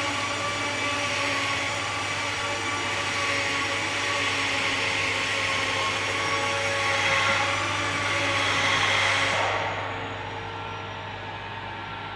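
Steady whirring machine noise, like an electric motor or blower running, with a low hum under it. About nine and a half seconds in the higher hiss drops away and a quieter hum goes on.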